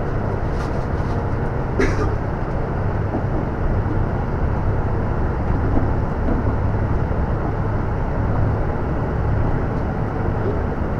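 Cabin noise of a LiAZ 6213.22 articulated diesel city bus under way: a steady low engine and road rumble. A single sharp click sounds about two seconds in.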